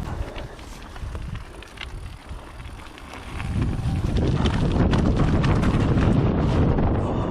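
Mountain bike riding fast down a dirt trail, its chain and frame rattling and clicking over the ground, with wind rushing over the chest-mounted microphone. About three and a half seconds in the rush of wind and rattling grows much louder and stays loud.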